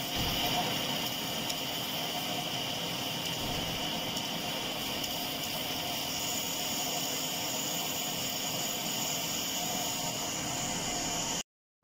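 Metal lathe turning a steel gear blank: the spindle runs steadily while the tool takes a cut, giving an even hiss with a steady high whine.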